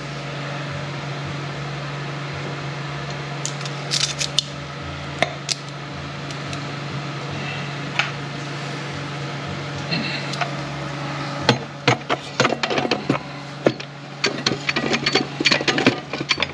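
Steel transmission parts clinking and knocking as they are handled and fitted into a 10R80 automatic transmission case: a few isolated clicks at first, then a quick run of metal-on-metal clinks from about two-thirds of the way in as a splined shaft is set down into the gear train. A steady hum sits underneath throughout.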